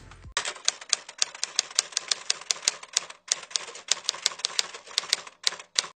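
Typewriter typing sound effect: a quick, uneven run of sharp key clicks, about five a second, with a short pause midway, stopping just before the end.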